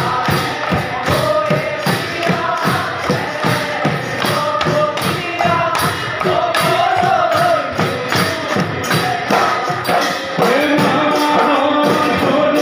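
Husori Bihu music: Assamese dhol drums beating a fast, steady rhythm of about three strokes a second, with small cymbals jingling and a group of men singing.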